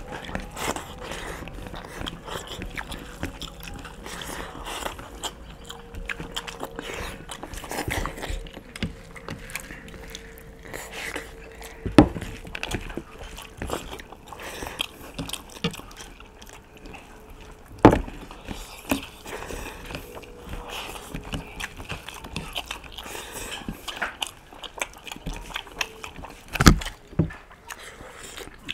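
Close-up eating noises from two people eating rice and curry by hand: chewing, mouth sounds and fingers working the food on the plates. Three sharp knocks stand out, near 12 s, 18 s and 27 s.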